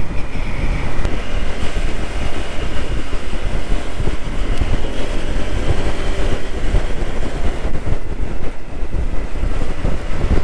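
Wind buffeting a helmet-mounted microphone while riding a motor scooter at about 45 km/h, with the scooter's engine and tyre noise as a steady low rumble beneath.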